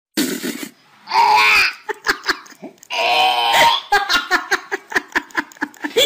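A person laughing: two longer laughs, then a quick run of short ha-ha bursts, about four or five a second, through the second half.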